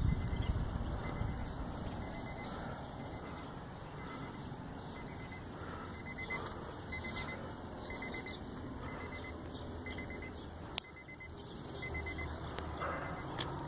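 Outdoor street ambience with low wind rumble on the microphone, and a faint high beep repeating about twice a second throughout. A single sharp click sounds about eleven seconds in.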